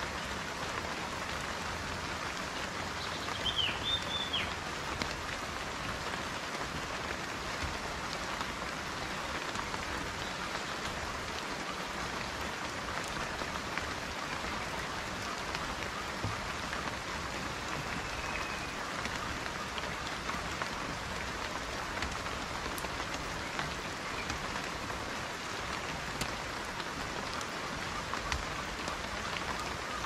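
Steady rain falling on leafy forest vegetation, an even hiss with no let-up. A bird gives two short chirps about three to four seconds in, and a faint call near the middle.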